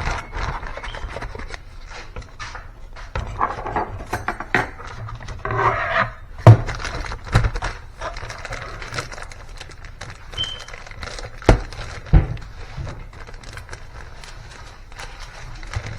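Kitchen handling noises: rustling and scraping with many small clicks and a few sharp knocks, the loudest about six and a half seconds in and twice more around eleven and twelve seconds, as portions of mashed potato are packed into a Ziploc bag.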